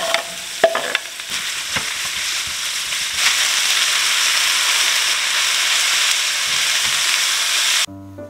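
Ingredients frying in a hot pan for a brunch pasta, a loud steady sizzle, with a few sharp knocks in the first two seconds. The sizzle grows louder about three seconds in and cuts off abruptly near the end.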